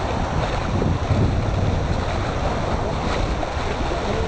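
Wind buffeting the microphone, with water rushing along the hull of an outrigger sailing canoe under way. There is a faint single tap about three seconds in.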